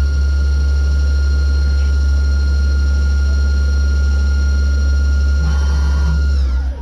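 Deckel Maho DMU 35 M machining centre running with a strong steady hum and a high steady whine. Near the end the whine falls in pitch and the sound dies away as the machine winds down.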